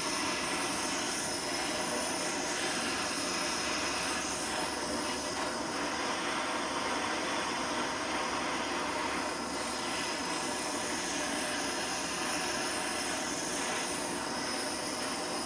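Blowtorch flame burning with a steady rushing noise, heating the flywheel-side bearing sleeve on a Vespa P200 crankshaft so it will loosen from the shaft.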